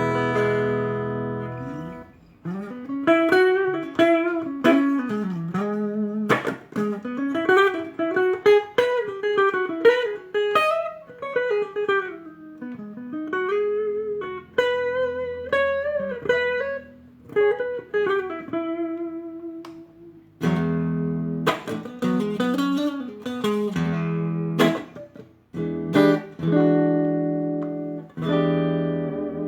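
Chinese-made Ibanez JEM-style electric guitar played solo: a ringing chord, then a melodic single-note lead line with string bends and vibrato, then strummed chords again from about two-thirds of the way in.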